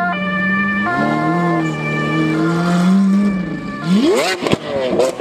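Two-tone siren alternating between a high and a low note about every three-quarters of a second, over an engine's low drone. About a second before the end it stops, and a car engine revs up hard in rising sweeps with a few sharp cracks.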